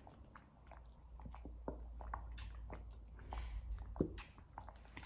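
Faint, irregular clicks and crunches of someone chewing crunchy snacks, with one sharper crunch about four seconds in.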